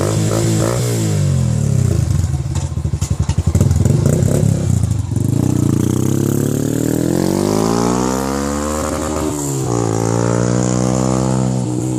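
Yamaha Fazer 150's single-cylinder engine running through a Roncar Boca 8 aluminium aftermarket exhaust. For the first few seconds the revs fall and pulse low; then they climb steadily for about four seconds, drop sharply, and climb again.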